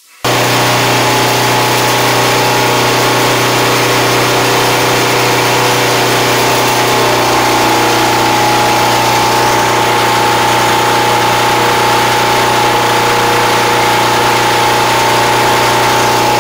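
EF2600 portable generator's engine running steadily under a lamp load.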